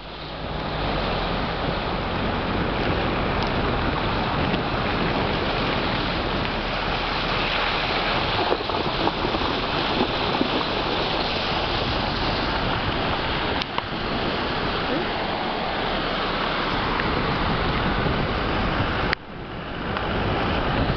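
Steady rushing noise of muddy floodwater running, mixed with wind buffeting a microphone held out of a moving vehicle's open side window. The noise drops out suddenly near the end and builds back up.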